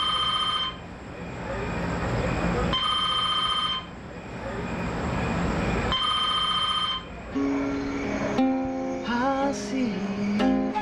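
A telephone rings three times, each ring about a second long with roughly two seconds between, over a steady background hiss. About seven seconds in, an acoustic guitar starts picking a melody with sliding notes.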